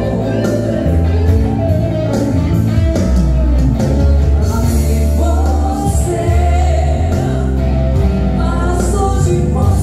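A live band plays a song, with a woman singing over electric guitar, electric bass and keyboard. The band is amplified through an NHL VL6000 column PA system in a large room.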